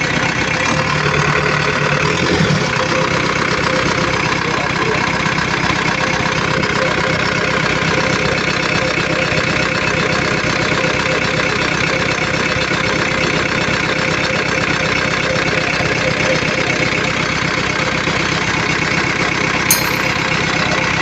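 Diesel engine of a Cat 422E backhoe loader running steadily, with the alternator now charging. A single sharp click near the end.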